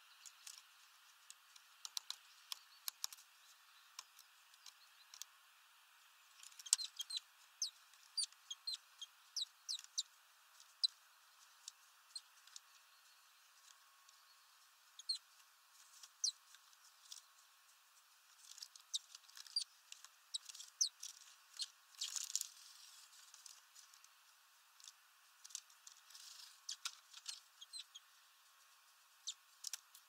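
Great tits at a fat feeder: scattered short, high-pitched ticks and chips, coming in flurries, several a second at times, with quieter gaps between.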